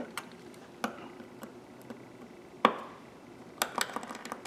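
Small screwdriver tips clicking against the steel head of a 1/4-inch ratchet while prying at its retaining keeper. There are a few sharp metal clicks, the loudest about halfway through with a brief ring after it, then a quick run of clicks near the end.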